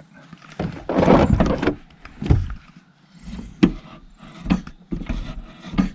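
VW T5 van sliding door being worked on its rail, metal scraping and clunking: one longer loud scrape about a second in, then a handful of separate knocks.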